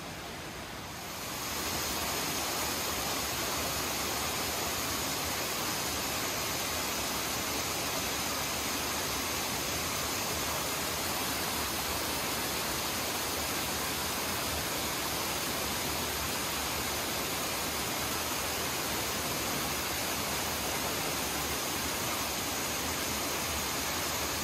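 A steady, even rushing noise that swells up about a second in and then holds level, with no distinct events in it.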